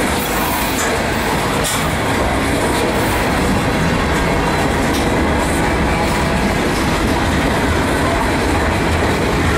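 Freight train of covered hopper cars rolling past at close range: a steady, loud rumble of steel wheels on rail, with a few scattered clicks as the wheels cross rail joints.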